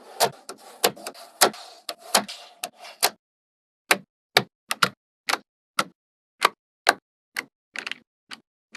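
A run of sharp, separate clicks and taps at an uneven pace of roughly two a second, with a rustling hiss under the first three seconds.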